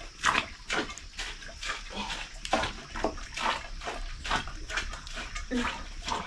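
A wooden stick stirring a wet, stringy mix in a metal cooking pot: a rhythmic squelching scrape of strokes, about two a second.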